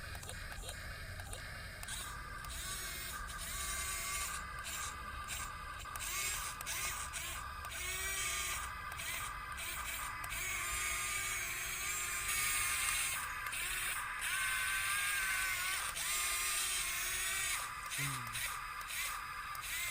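Background music, with a small electric motor whirring along with it.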